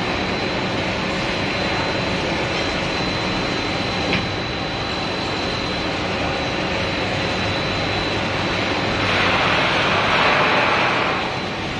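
Steady running noise of a snack frying line's machinery: a hum with a thin, steady high whine over it. One small click comes about four seconds in, and a louder hiss lasts about two seconds near the end.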